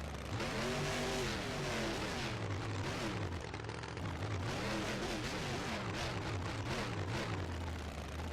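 Motor vehicle engine revving up and down over and over, its pitch rising and falling every second or so.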